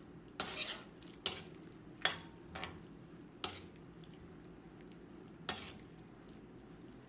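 Metal ladle stirring a wok of coconut-milk curry with pork and pickled bamboo shoots, clinking and scraping against the pan about six times at uneven intervals.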